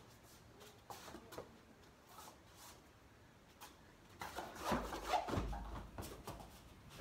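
Feet scuffling and shuffling on foam floor mats and clothes rustling as two people grapple at close quarters. It is faint at first and grows into a busier stretch of scuffs and soft knocks from about four seconds in.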